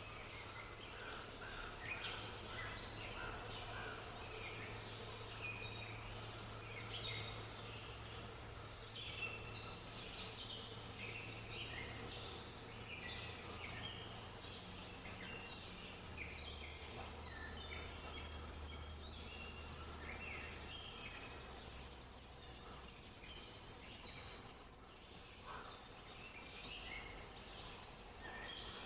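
Many small songbirds chirping and twittering in a dense, overlapping chorus, over a steady low hum.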